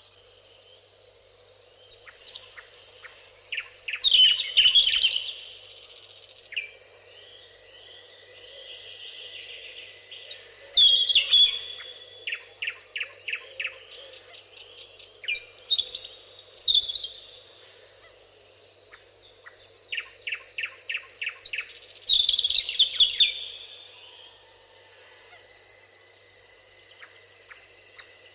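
Songbirds singing: loud song phrases recurring every several seconds, with rapid runs of short repeated notes between them. A steady high-pitched tone sits underneath throughout.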